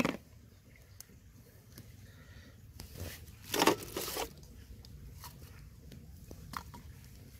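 Plastic bowl and containers handled on a plate, a brief rustling, scraping clatter about three seconds in, followed by a few light clicks.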